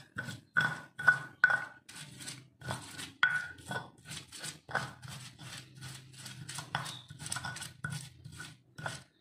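Stone pestle grinding and scraping a wet spice paste of turmeric, chilli, shallot and garlic in a black volcanic-stone mortar (cobek and ulekan), in quick repeated strokes, about two to three a second.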